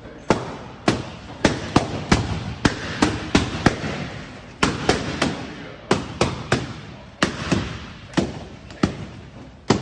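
Balloons popping in quick succession: about twenty sharp pops, two or three a second at uneven spacing, each with a brief echo.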